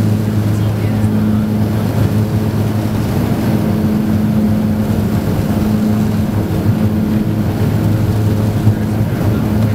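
Twin Garrett TPE331 turboprop engines and propellers of a BAe Jetstream 31 running steadily, heard from inside the cabin: a constant low, humming drone.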